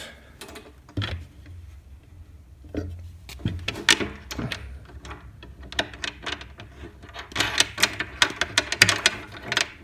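Small metal fittings clicking and tapping as a nut, washer and bracket are put onto a screw by hand and threaded on, in irregular clusters of light clicks that are thickest in the last few seconds.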